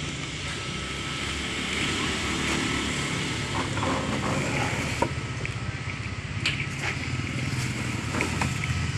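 Steady rumble of road traffic, with scattered small crisp clicks from a cat chewing dry kibble.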